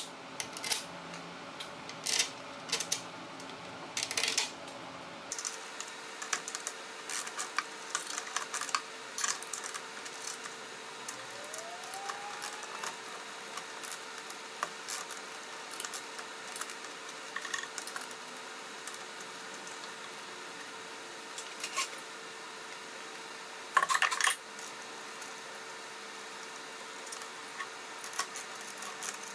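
Scattered small metallic clicks and clinks of a screwdriver, a wrench and steel bolts and nuts being handled and tightened, with a louder brief clatter a little before the end. A faint steady hum lies underneath.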